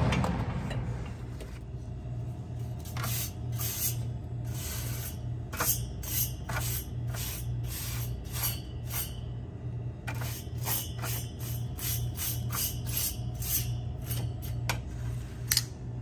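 A steady low hum from the refrigeration unit, overlaid with many short, irregular scraping and rubbing sounds, the loudest close to the end.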